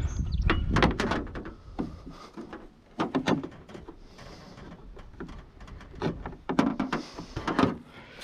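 Car door being handled and shut: several groups of clunks and rattles with quieter gaps between.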